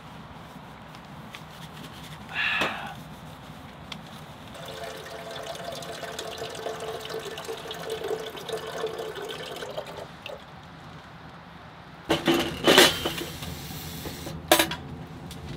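Water pouring from a jug's spigot into a small stainless steel stove water tank for several seconds, then sharp metal clanks as the tank is hung on the side of a wood stove. There is also a short clink about two seconds in.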